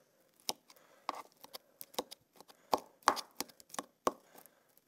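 Metal fork jabbing at soft avocado pieces in a small wooden bowl, mashing them for guacamole, with a run of irregular sharp taps as the fork hits the bowl.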